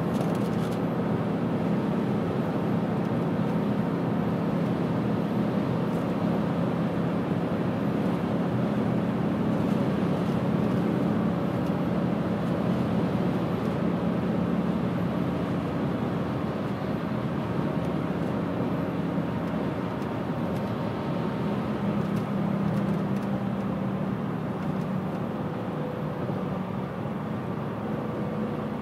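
BMW E92 M3's V8, fitted with a Fabspeed resonated X-pipe, high-flow catalytic converters and an Agency Power exhaust, droning steadily at highway cruise, heard from inside the closed cabin.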